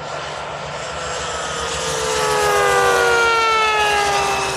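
Two 1:4-scale Pilatus PC-21 radio-controlled models, each with a Kingtech K60 turboprop, flying past together. Their whining engine note swells to its loudest about three seconds in and drops in pitch as they go by.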